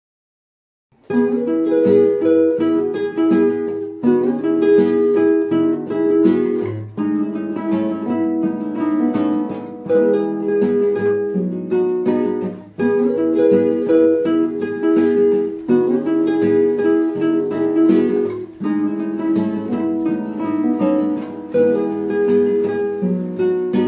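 Song intro on strummed acoustic guitar, starting about a second in after silence: chords strummed in a steady rhythm, changing roughly every three seconds.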